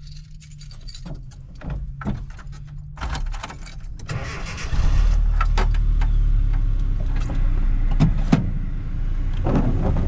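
Cabin sound of a Nissan D21 pickup: its engine running with clicks and rattles of handling around the wheel and shifter. About halfway through, the low engine rumble turns much louder and stays that way.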